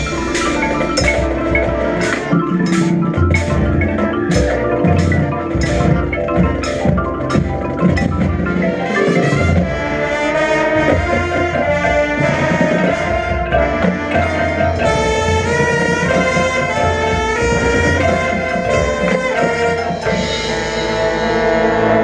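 Marching band playing its field show, with front-ensemble mallet percussion such as marimba and glockenspiel over drums. Sharp, regular strikes come in the first half, giving way to longer held chords.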